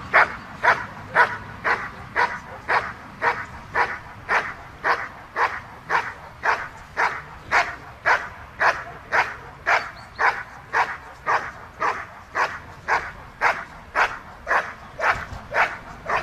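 German Shepherd dog barking steadily and without a break at a motionless protection helper, holding him in the hold-and-bark of a protection test, at about two to three evenly spaced barks a second.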